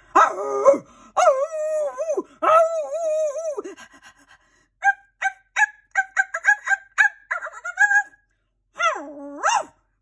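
Dogs howling and yipping: long howls that waver in pitch over the first few seconds, then a quick run of short high yips, and another howl near the end.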